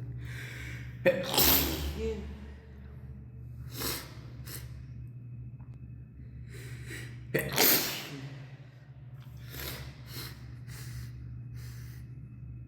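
A person sneezing twice in a sneezing fit, in a stairwell. Each sneeze follows a gasping in-breath, the first about a second in and the second about seven and a half seconds in, with short sniffs and breaths in between. A steady low hum runs underneath.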